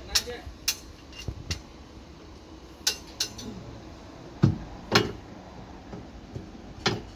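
Sharp metallic clinks and clanks at irregular intervals, about eight or nine in all, from steel reinforcing bar being handled and tied with a wire-twisting hook.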